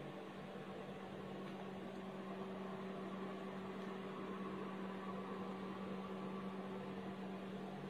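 Steady low hum with a faint hiss: background room noise from an unseen appliance or electrical source.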